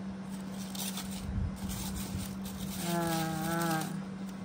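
A flying insect buzzing close by for about a second, starting about three seconds in, its pitch wavering as it moves. A steady low hum sits underneath.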